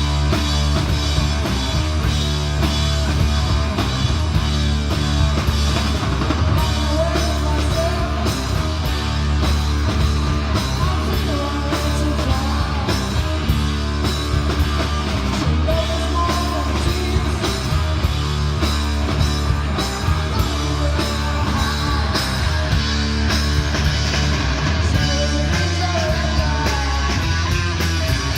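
Rock music with a drum kit, bass and guitar playing steadily.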